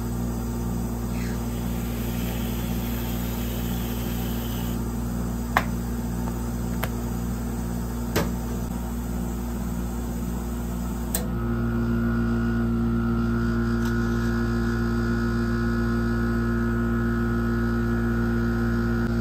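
Steady electric hum of a cold-plate ice cream roll machine, which steps up louder with a higher tone about eleven seconds in. About a second in comes a soft hiss lasting some three seconds, as cream is sprayed from a whipped-cream dispenser, and a few faint clicks follow.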